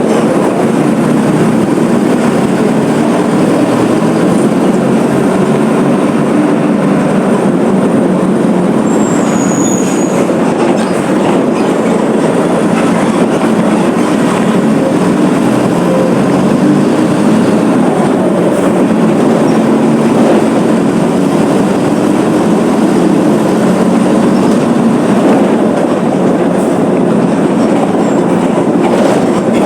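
Mercedes-Benz OF 1721 BlueTec 5 city bus diesel engine running with the bus under way: a loud, steady rumble mixed with the rolling and clattering of the bus.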